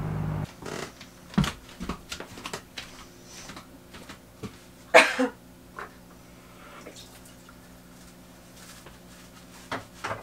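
Dishes clinking and knocking in a small caravan kitchen sink during washing up, with one loud cough about five seconds in.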